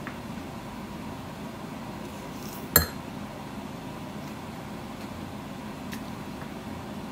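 A metal eating utensil clinks sharply once against a dish about three seconds in, with a fainter tap near the end, over a steady low room hum.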